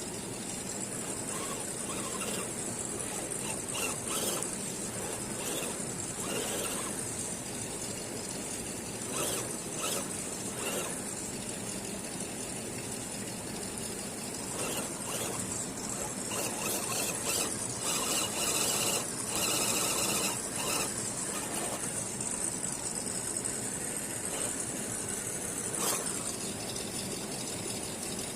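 A 1:10 RGT EX86010-CJ RC crawler's electric motor and geared drivetrain running with a steady high whine, mixed with scattered clicks and rattles, getting louder for a few seconds a little past the middle.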